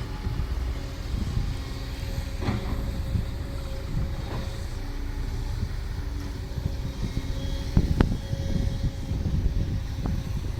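Ten-wheel dump truck's diesel engine running with a steady low rumble, with a few short knocks.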